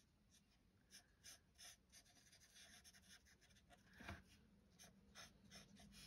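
Faint scratching of a colourless Stampin' Blends alcohol marker on card stock, in short, scattered strokes with small ticks.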